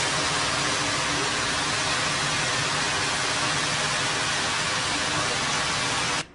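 Floodwater rushing down a street in a torrent, a loud steady rush with no break. It cuts off abruptly near the end, giving way to a quieter rush of water.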